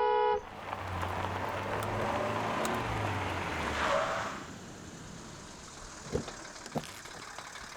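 A motor vehicle's engine and road noise swelling as it approaches, then fading about four seconds in.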